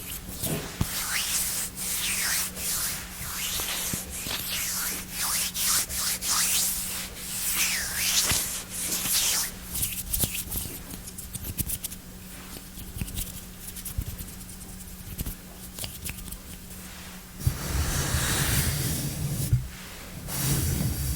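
Close-miked ASMR hand and mouth sounds: rubbing and many crisp clicks, thinning out partway through. A denser stretch of rubbing starts about eighteen seconds in.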